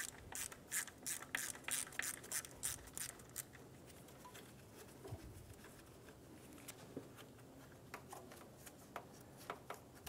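Socket ratchet clicking about four times a second as a 10mm socket loosens the alternator ground strap bolt, stopping about three and a half seconds in. After that only a few faint clicks of parts being handled.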